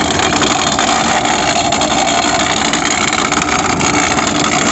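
Forage chopper running, its knife drum spinning under tractor power during knife sharpening with the built-in stone; a loud, steady machine noise.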